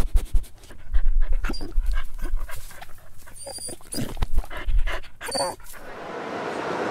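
Dog panting and snuffling in a run of short, quick, uneven breaths. Near the end the hubbub of a crowd in a large hall fades in.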